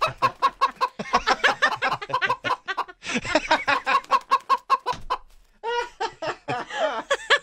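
Sound clip of chickens cackling and clucking in quick, repeated calls for about five seconds, followed near the end by people laughing.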